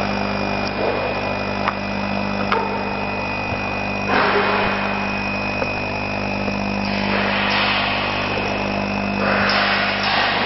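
Laser cutting machine running as it cuts MDF: a steady mechanical hum with a constant high whine, and a hiss that swells about four seconds in, eases about seven seconds in and rises again about nine seconds in.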